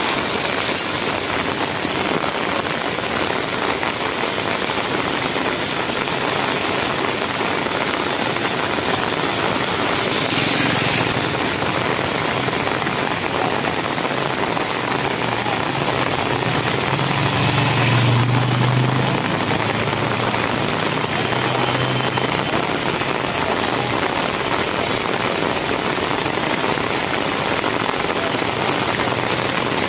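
Heavy rain falling on a paved road, a steady hiss throughout. A low engine hum swells and fades around the middle.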